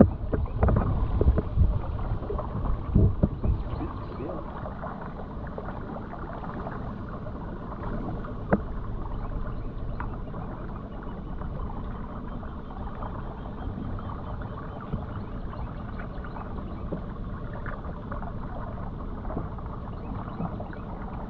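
Handling noise aboard a small boat while crabbing off a trotline: a few seconds of heavy low thumps and rumbling, then a steady low rush with a single sharp knock partway through.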